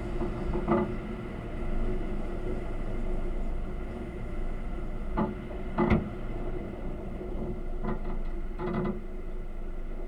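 A vehicle driving, heard from inside, with a steady low engine and road sound broken by a few short knocks and rattles.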